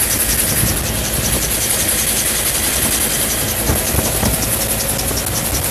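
Helicopter cabin noise in flight: the engine and rotor running steadily, with a rapid even beat from the rotor blades over a loud hiss.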